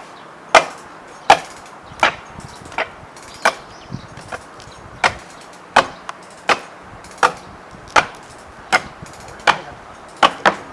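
Axe chopping into wood in steady strokes, about fourteen sharp blows spaced roughly three-quarters of a second apart.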